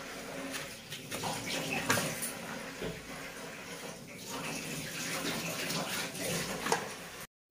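Raw green banana being cut and peeled against the blade of a boti, with scraping strokes and a few sharp clicks, over a steady rushing hiss. The sound cuts off suddenly near the end.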